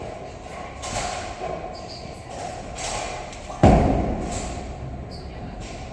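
A single heavy bowling-ball thud about three and a half seconds in, its low rumble fading over the next two seconds, over the steady din of a bowling alley.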